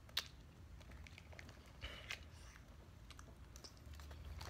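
Faint eating sounds: a plastic spoon working a small plastic cup of fruit jelly, with a sharp click just after the start, a short scrape about two seconds in, and soft mouth clicks.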